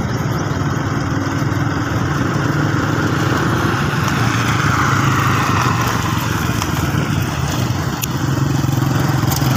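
A vehicle's engine running steadily on the move, a low hum under wind and road noise that swells a little midway.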